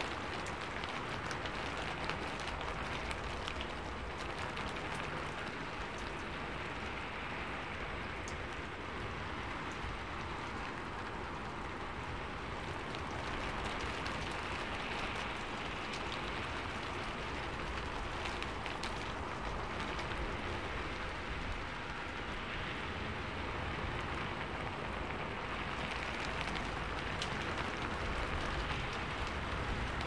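Steady rain falling: an even hiss with many scattered sharp ticks of single drops striking a surface.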